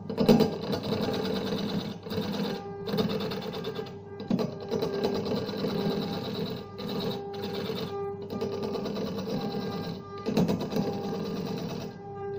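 Electric-motor-driven wood lathe running with a steady hum while a hand-held turning chisel cuts into the spinning wooden disc, a rough scraping noise broken by brief pauses every second or two.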